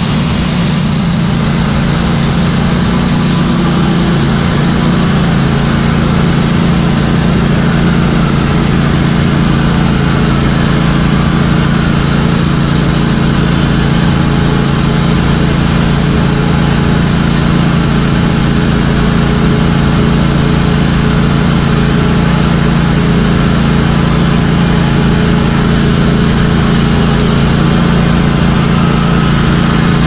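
Woodmizer LT15 Go bandsaw mill's gas engine running steadily under load while the band blade saws a board off an oak cant, one long continuous cutting pass.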